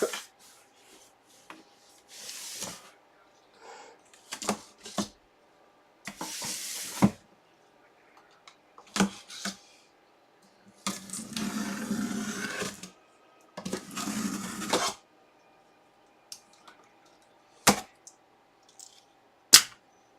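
Packaging being handled by hand: intermittent rustling and scraping of a box and wrapper, broken by short sharp clicks and taps, the loudest near the end.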